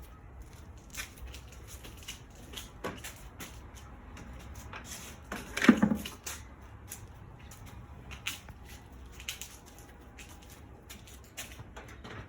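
Garage door hardware being worked by hand: scattered metal clicks and knocks of rollers and track, with one loud clunk a little before the middle, as the door's rollers are put back into the track.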